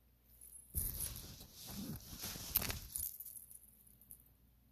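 Stacked metal bangle bracelets and charms jingling and rustling for about two seconds as an arm is raised, with one sharper clink near the end.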